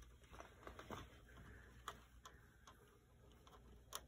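Near silence with a handful of faint, irregular small clicks: plastic Lego pieces being handled around the model's hoist basket and its crank.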